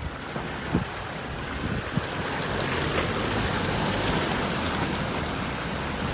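Land Rover Defender Puma driving through a flooded track, its tyres churning and splashing through shallow water over the steady hum of its diesel engine. The rush of spraying water grows louder after about two seconds.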